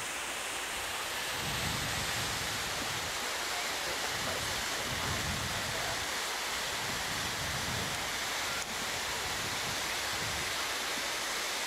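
Steady rushing of a waterfall pouring into its plunge pool.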